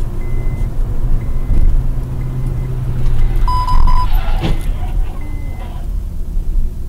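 Car interior road and engine rumble heard through a dashcam, with a short electronic beep about halfway through and a brief knock just after it.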